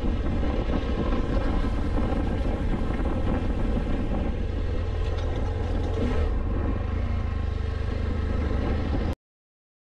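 Motorcycle engine running steadily under way, with wind and road noise; the sound cuts off abruptly about nine seconds in.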